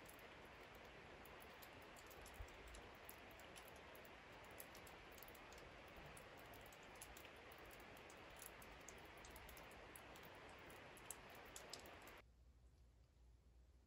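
Near silence: a faint steady hiss with scattered tiny clicks, the hiss dropping away abruptly about twelve seconds in.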